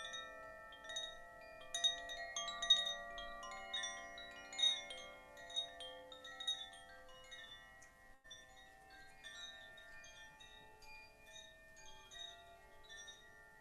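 Chimes struck again and again, many overlapping ringing tones that hang on; the strikes are busier and louder in the first half and thin out, quieter, after about eight seconds.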